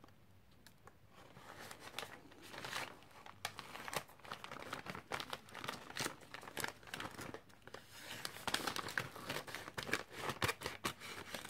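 A yellow padded mailer envelope being handled and cut open with scissors: irregular paper rustling and crackling with snips. It starts a second or two in and gets busier in the second half.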